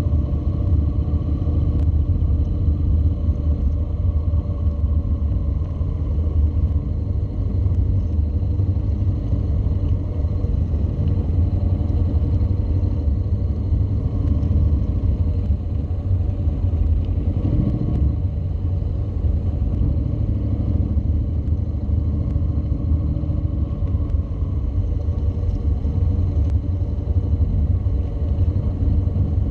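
Honda NC700's parallel-twin engine running as the bike is ridden slowly around a cone course, a steady low rumble with a brief swell about halfway through.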